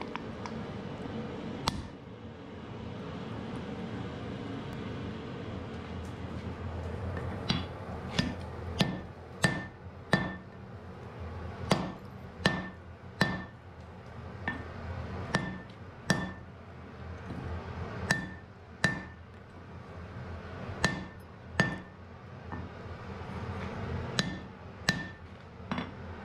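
A hand hammer strikes red-hot wrought iron on an anvil, about twenty blows in uneven runs of one to two a second, each with a short metallic ring. After one early blow there is a pause of several seconds, and a steady low hum runs underneath.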